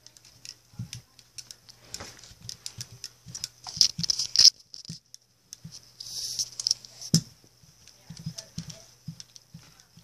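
Irregular light taps, scrapes and rustles as plastic toy horses are handled and moved over a shaggy rug and against a cardboard box, with a sharper knock about seven seconds in.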